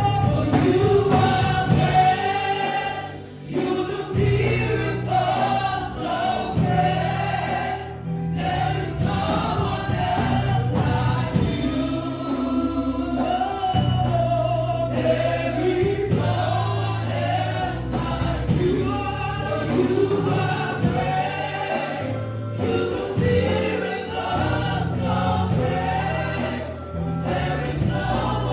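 Church choir singing a gospel worship song over sustained low bass notes that change every couple of seconds.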